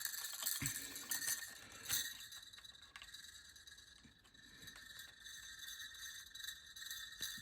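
Small plastic parts of a snap-together toy figure being handled and pressed together: scattered light clicks and taps, with a soft thump a little over half a second in.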